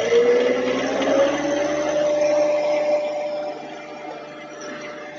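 John Deere 1023E compact tractor's three-cylinder diesel engine revving up to higher RPM, its pitch rising over the first second or two and then holding steady.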